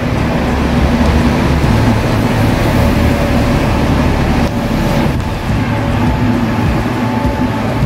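Double-decker buses running past, a loud, steady engine and traffic rumble, with a faint whine in the middle.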